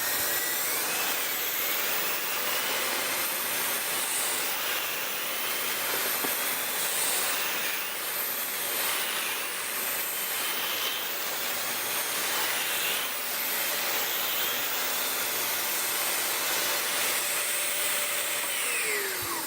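Dyson DC39 canister vacuum cleaner running steadily, sucking dirt back up off the floor. Its motor whine falls away as it is switched off near the end.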